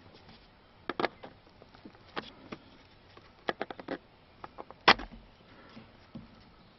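Scattered sharp clicks and taps of hand tools and fingers on the plastic steering-column trim: single ones about a second and two seconds in, a quick run of several near the middle, and the loudest a little before the end.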